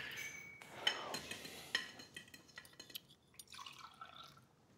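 Tableware sounds: a fork clinking against a plate and glasses, with a couple of sharper clinks about one and two seconds in. In the second half, red wine trickles from a glass carafe into a small glass.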